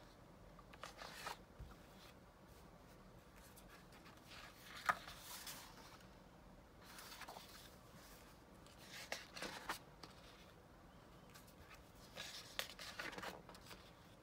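Printed paper sheets rustling and sliding as they are flipped over one by one on a stack, in a few faint, scattered swishes, the sharpest about five seconds in.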